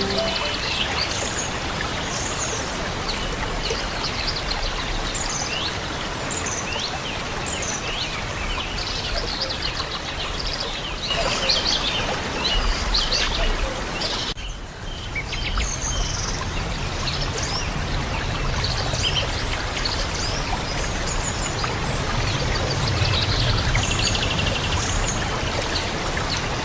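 Steady rush of flowing water, like a stream, with many small birds chirping over it. The water sound dips briefly about halfway through.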